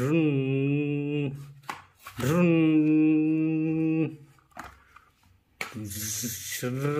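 A man's voice making a drawn-out engine drone, imitating a JCB loader's motor, in three long held notes with a brief hiss about six seconds in.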